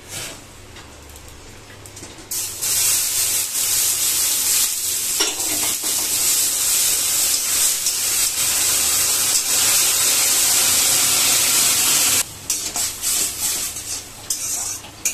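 Hot water hitting roasted semolina and vegetables in a hot steel kadai, sizzling and hissing loudly from about two seconds in, stopping abruptly after about ten seconds. A metal spatula then clicks and scrapes against the pan, stirring the upma.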